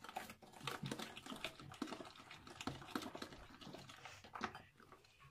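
Hand-held balloon whisk beating a thin cake batter in a bowl: a quick, irregular run of light clicks and taps as the wires hit the bowl.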